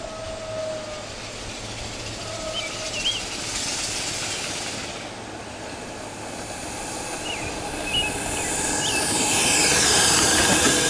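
A 1902-style loco cycle steam motorcycle, with a 16-inch boiler and a slotted stainless burner, running on its first run. It grows louder as it approaches and is loudest as it passes close near the end.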